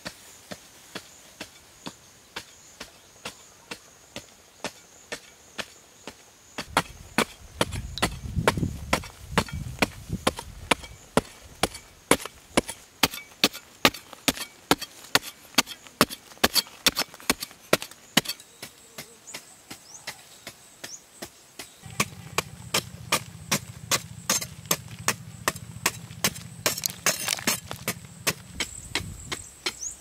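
A digging tool's blade chopping repeatedly into hard, dry earth: sharp strikes about two a second, coming closer together after several seconds. A low rumble rises twice under the strikes.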